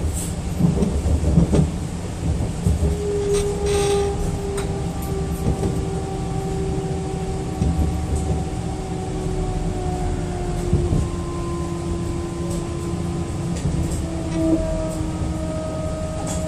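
DB class 426 (Bombardier Talent) electric multiple unit running, with a low rumble under several high squealing tones that slowly fall in pitch, and a brief sharp rattle about four seconds in.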